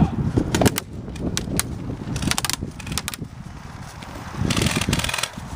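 Airsoft electric rifle (AEG) firing short rapid-fire bursts of snaps, the longest about four and a half seconds in, with single shots earlier and rustling movement and wind-like rumble on the camera's microphone between them.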